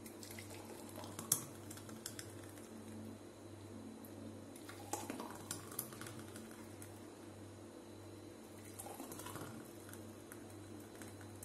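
Thick mango shake poured from a blender jar into drinking glasses: soft pouring with a few light clicks of glassware, the sharpest about a second in, over a steady low hum.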